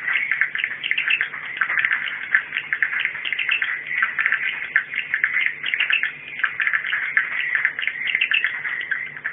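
Swiftlet twittering: a dense, unbroken stream of rapid high chirps, with a faint steady hum underneath. It is a recorded 'warning' call track of the kind played to lure swiftlets into nesting houses.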